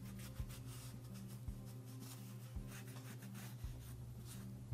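Faint rubbing and scrubbing of an alcohol-soaked paper towel wiped hard over the metal and frame of a Dillon XL650 reloading press, degreasing it. A steady low hum runs underneath, with a soft low knock about once a second.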